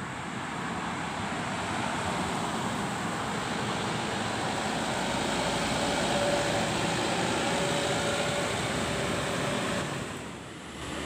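A truck driving past on the road, its engine and tyre noise swelling to the loudest point about six seconds in as it passes close by, amid steady traffic noise.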